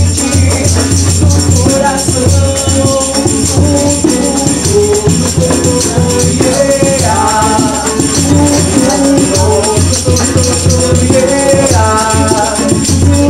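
Loud music with a pulsing bass beat, a singing voice and percussion.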